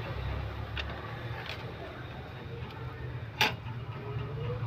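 Light clicks of small phone parts and tools being handled while a smartphone is put back together, with one sharper click about three and a half seconds in, over a steady low hum.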